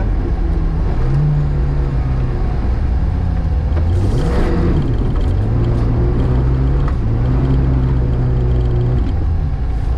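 VAZ 2105 rally car's four-cylinder engine revving hard under load, the pitch climbing and dropping several times through gear changes and lifts. A short rush of noise about four seconds in, as the engine note falls and rises again.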